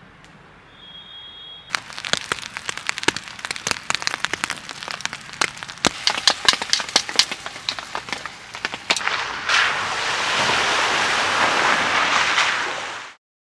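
Food frying in hot oil in a pan, with dense sharp crackles and pops, after a quiet start. In the last few seconds this gives way to a steady, even hiss.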